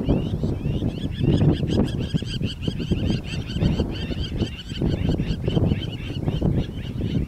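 A pack of African wild dogs twittering: many short, high, bird-like chirps in quick succession from several dogs at once, over a low rumble.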